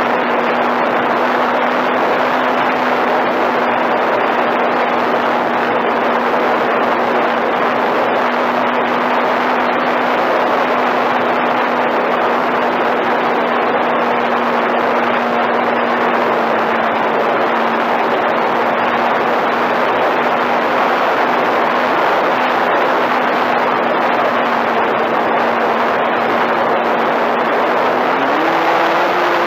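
Flyzone Switch RC airplane heard from its onboard camera in flight: the electric motor and propeller whine at a steady pitch under loud wind rush. Near the end the whine steps up in pitch.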